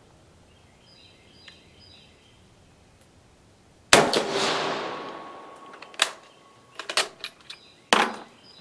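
A single shot from an 8mm-converted Carcano TS carbine, firing a reduced cast-bullet load, about four seconds in, ringing out for a couple of seconds. Metallic clicks of the bolt being worked follow, then a sharp clack near the end.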